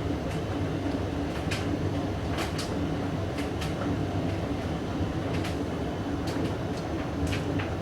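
Hoover DYN9144D3X washing machine with a Candy-built motor running through a wash of blankets and bedding: a steady motor hum and drum rumble, with irregular sharp clicks scattered through it.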